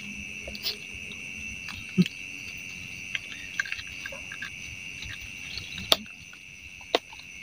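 Steady high-pitched chorus of night insects, likely crickets, with a few scattered sharp clicks and knocks, the clearest about two seconds in and again near the end.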